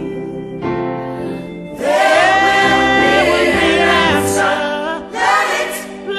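Music: a choir singing held, wavering vocal lines over instrumental backing, gospel in style, swelling fuller about two seconds in.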